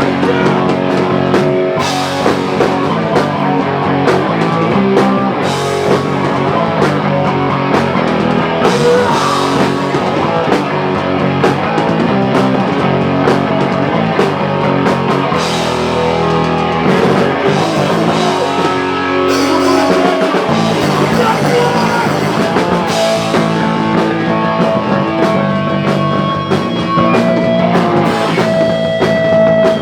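Live rock band playing a loud song with electric guitars and a drum kit.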